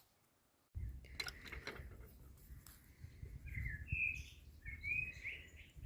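Wind rumbling on the microphone, starting under a second in, with a bird giving a few short chirps in the second half.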